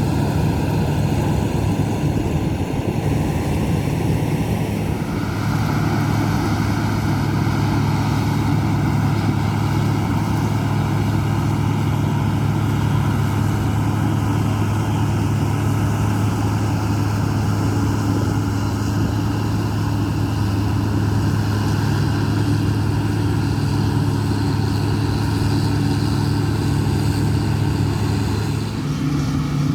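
Heavy diesel farm machinery running steadily with a deep engine drone; a steady higher whine joins about five seconds in, and the sound shifts shortly before the end.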